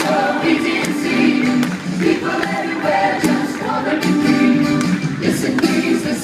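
Live band and singers performing a 1960s-style song, several voices singing together over drums and percussion.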